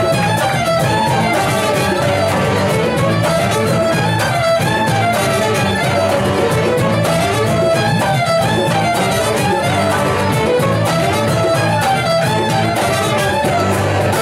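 Live folk ensemble playing a lively tune, with fiddles carrying the melody over a steady, repeating low bass part.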